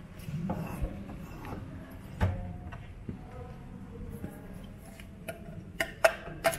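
Scattered clicks and knocks over a low steady hum: a single knock about two seconds in, then several sharp clicks in the last second and a half, the loudest about six seconds in.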